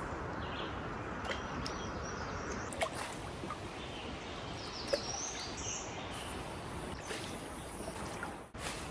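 Steady outdoor background noise with two sharp knocks, about three and five seconds in, and a few brief high bird chirps around five to six seconds in.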